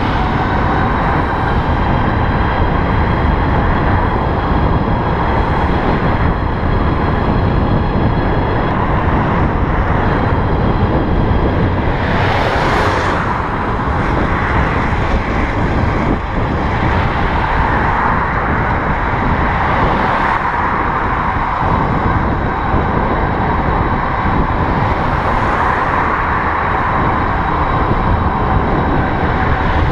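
Steady wind and road noise while riding an electric bicycle in traffic, with a thin high whine through the first third and a few brief swells of passing traffic.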